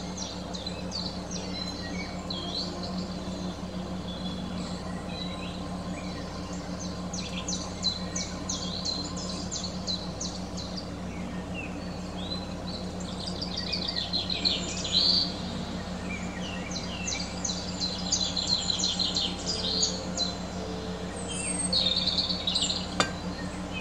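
Songbirds chirping and twittering in quick trilled runs that come and go, busiest in the second half, over a steady low hum.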